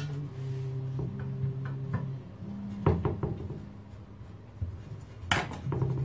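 A few sharp knocks and clicks of hand tools and small metal parts being picked up and set down on a wooden workbench, the loudest about three seconds in and again near the end. Soft background music with held notes plays underneath.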